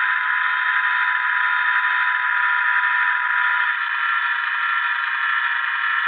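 The LokSound decoder's EMD 645 diesel prime mover sound playing through the small speaker of an HO-scale model locomotive, in its engine shut-down sequence. The sound is steady and thin, with no deep bass. One of its steady tones drops away a little under four seconds in.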